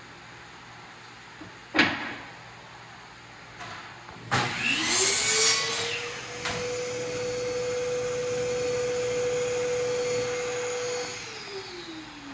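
A knock as a pine board is set down, then a chop saw starts and cuts through the board in about a second and a half. A motor whine runs on at a steady pitch for about five seconds and then winds down near the end.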